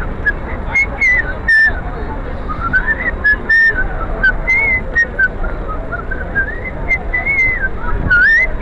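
Whistling: a wandering tune of gliding, wavering notes that goes on with short breaks throughout, over steady street and crowd noise.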